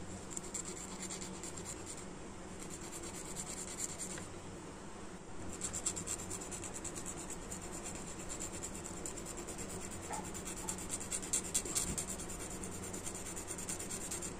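Fine, rapid scratching of a thin metal hand tool worked against a small plastic action-figure part, with a brief pause about four seconds in.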